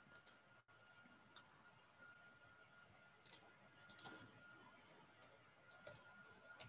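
Faint, scattered clicks of a computer keyboard, a few keystrokes at a time with pauses between, over near silence with a faint steady high tone underneath.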